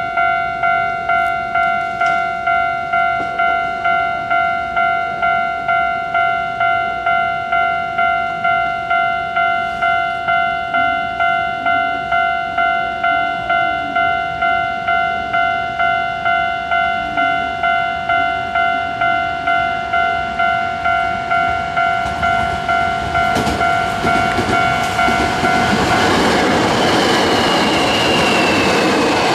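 Japanese level-crossing warning bell ringing in even electronic pulses, about two a second. About three-quarters of the way in, a Hankyu 1000 series electric train passes close by at speed: its wheel-and-running noise swells and drowns the bell, with a falling motor whine as it goes by.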